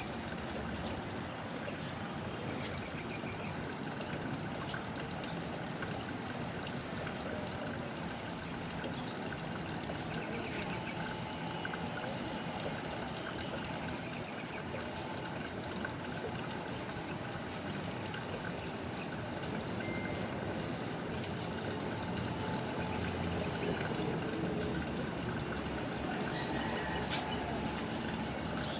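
Fully automatic washing machine filling its tub with a steady rush of water, running throughout. It is topping up the water level on its own to suit a heavy comforter load.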